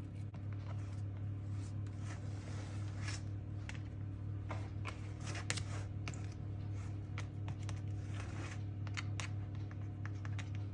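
A plastic spatula scraping, patting and tapping against thin plastic tubs while it smooths a thick paste, in irregular short clicks and scrapes. A steady low hum runs underneath.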